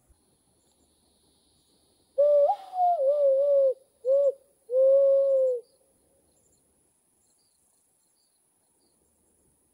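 Hand whistle: a person blowing into cupped hands, making a pure hooting tone. Three calls: a long wavering one with a brief jump up in pitch, a short one, then a long steady one.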